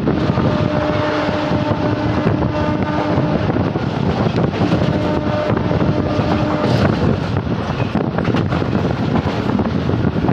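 WAG-7 electric locomotive's air horn sounding two long blasts, the first about three seconds and the second about two seconds, over a loud steady rumble and wind noise from the moving train.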